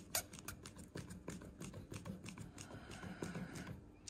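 Faint, irregular clicks and ticks from hand work at a car cooling system's bleed screw, opened to let trapped air bubbles out of the coolant.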